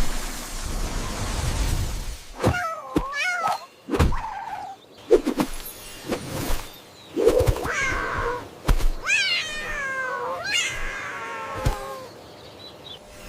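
A cat meowing several times, drawn-out calls that rise and fall in pitch, with a few sharp knocks in between.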